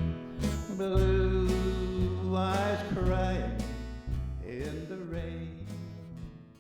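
Instrumental ending of a country song: acoustic guitar chords and bass notes under a held melody, fading out near the end.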